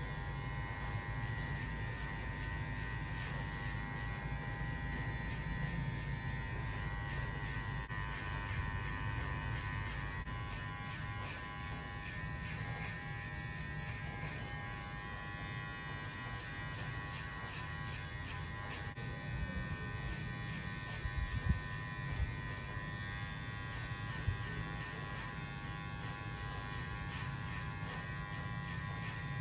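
Electric hair clipper running with a steady buzz while cutting a fade, with a few sharp clicks about two-thirds of the way in.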